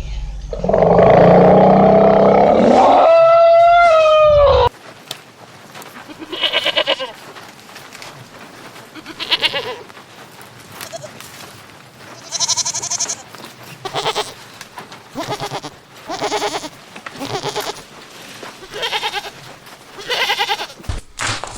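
A loud, drawn-out farm-animal call that falls in pitch at its end, then after an abrupt cut a run of short, quavering bleats repeating every second or two.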